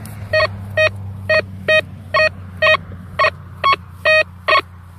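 Quasar F3 metal detector giving a repeated target tone as its coil sweeps back and forth over a target buried 30 cm deep: short beeps with a buzzy, stacked tone, about two a second, the detector signalling a solid hit at that depth. A steady low hum runs underneath.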